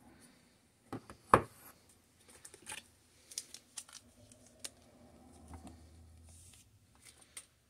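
Packaging being handled: scattered clicks and knocks against a cardboard box, one sharp knock about a second and a half in much louder than the rest, and rustling as a coiled cable is lifted out of the box.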